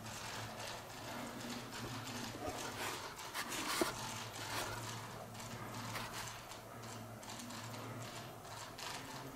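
Faint, irregular scuffs and clicks, with one sharper click about four seconds in, over a low steady hum.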